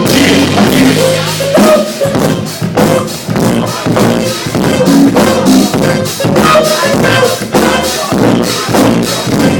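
A band playing an instrumental hip-hop/funk groove with no vocals: a steady drum kit beat with kick drum, over bass and chords.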